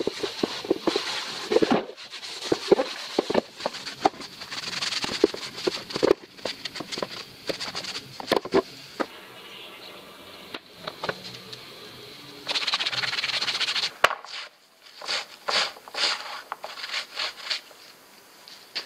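A rag rubbing over hard plastic bumper parts on a metal workbench, with the parts knocking and clicking as they are handled. A louder, steady stretch of scrubbing comes about two-thirds of the way in, followed by a quick run of short wiping strokes.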